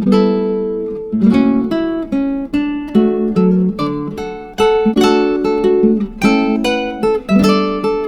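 Background music: an acoustic guitar playing, plucked and strummed notes at an even pace.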